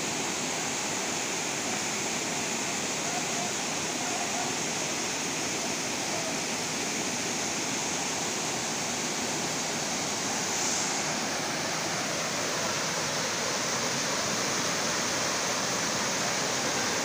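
Waterfall cascading over rock ledges into a rocky stream: a steady, unbroken rush of falling water.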